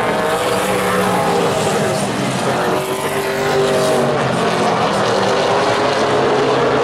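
A pack of Super Late Model stock cars racing, several V8 engines running hard at once. Their engine notes overlap and shift slightly in pitch as the cars pass.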